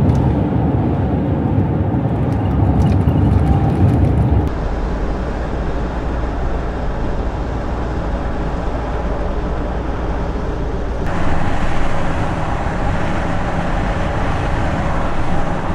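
Road and engine noise of a Land Rover Discovery 4 driving at speed: a steady rumble and tyre hiss. The sound changes abruptly about four and a half seconds in and again about eleven seconds in.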